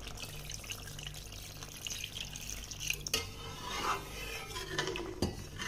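Water poured from a steel bowl into a pan of curry masala and potatoes, then a spatula stirring the thin gravy and scraping the pan, with two sharp knocks of metal about three and five seconds in.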